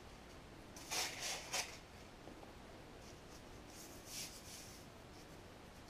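Faint scraping and rubbing of a long plastic shipping tube being handled as the quartz sleeve is taken out of it. There are a few short scratchy rubs about a second in and a softer cluster around four seconds.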